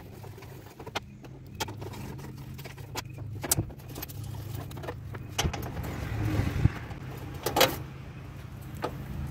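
Socket ratchet and loose 10 mm bolts clicking and clinking as the radiator's top support piece is unbolted: scattered, irregular sharp metallic clicks over a steady low hum.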